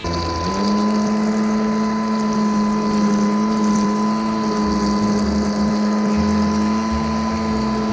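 Small electric motor of a toy RC speedboat running fast, a steady whine that rises briefly about half a second in and then holds, with water rushing and spraying against the plastic hull right by the microphone.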